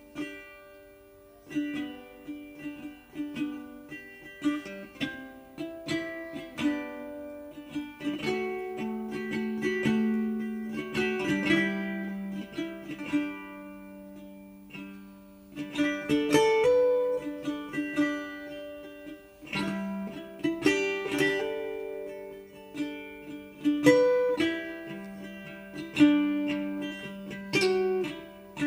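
Background music: a plucked-string tune of picked notes, each struck sharply and fading.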